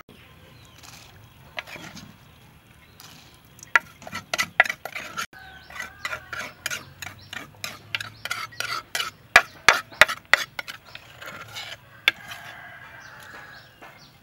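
Metal ladle stirring in a stainless steel bowl, clinking against its sides in a quick run of clicks, about three or four a second, that stops a few seconds before the end.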